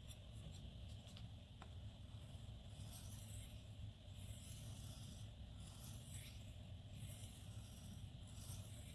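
A 9Cr18MoV knife edge stroked across a whetstone in light, faint scraping strokes, about six of them roughly a second apart starting a couple of seconds in. These are alternating strokes trading the burr from side to side to take it off the edge.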